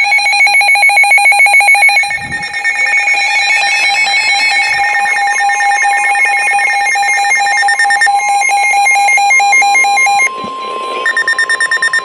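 Several NOAA weather radios sounding their alert alarms together for a Special Marine Warning: loud, overlapping rapid electronic beeping. About eight seconds in, a steady single tone, the broadcast's 1050 Hz warning alarm tone, joins and runs until it cuts off near the end.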